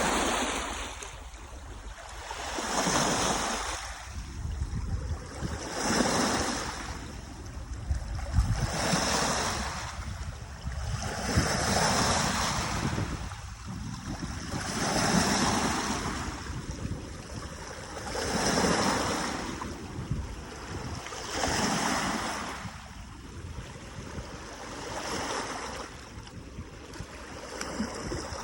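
Small lake waves washing onto the shore, one after another about every three seconds, each swelling and then fading.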